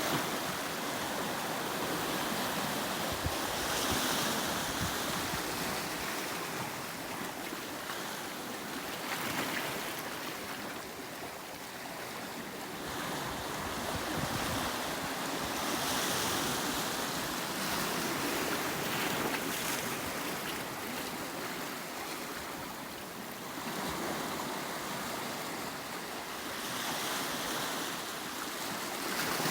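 Sea waves breaking and washing on a rocky volcanic shore, the surf swelling and ebbing every several seconds, with some wind on the microphone.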